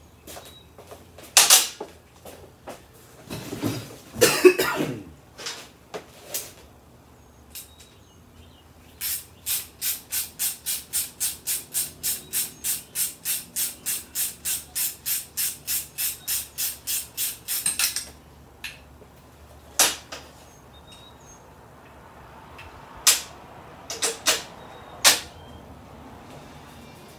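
Metal knocks and a short clatter of parts being handled while a mini chopper's front fork is fitted, then an even run of sharp clicks, about three a second for around nine seconds, followed by a few more single knocks.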